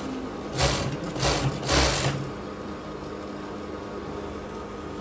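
Industrial sewing machine stitching in three short bursts within the first two seconds, over a steady hum.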